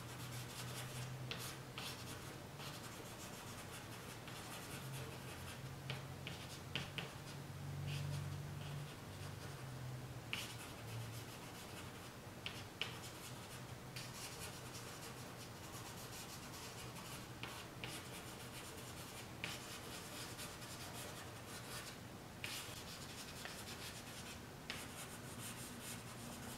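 Stick of charcoal scratching and rubbing on drawing paper in short, irregular dabbing strokes as small trees are put in; faint.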